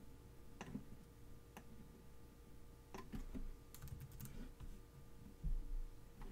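Scattered clicks and key taps at a computer, with a cluster of them about four seconds in, over a faint steady hum. A low thump about five and a half seconds in is the loudest sound.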